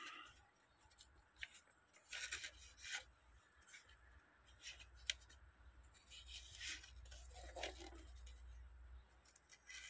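Faint rustling and scraping of a sheet of paper as a cleaver blade is drawn through it in short strokes: a paper-cut test of the freshly sharpened edge.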